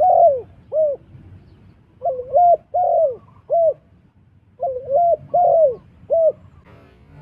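Spotted dove cooing: three phrases, each a run of a few short, arched coos, repeated about every two and a half seconds. Faint music comes in near the end.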